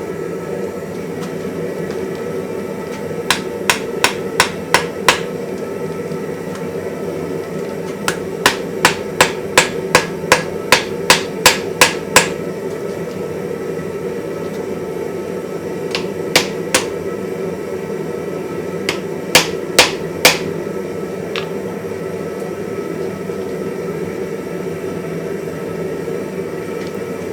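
Hand hammer striking hot iron on the anvil in bursts: about six blows, then a quicker run of about a dozen, then a few scattered blows, forge-welding the ends of the faceplate onto the post anvil body. A steady drone runs underneath.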